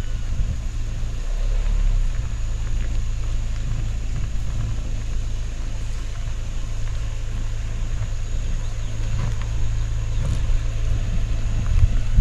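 Fiat Pulse car driving, its engine a steady low drone.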